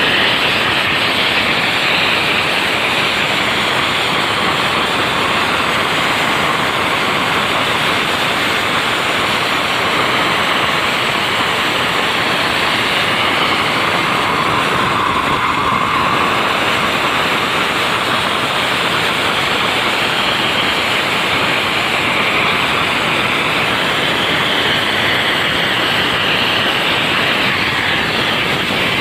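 Steady, loud rushing road and wind noise of vehicles travelling at speed, even throughout with no distinct horn notes.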